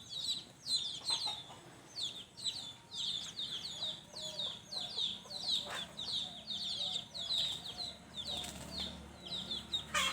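Chickens: a brood of chicks peeping rapidly and continuously in short, falling, high-pitched peeps that overlap. A hen's lower clucks come in now and then in the middle.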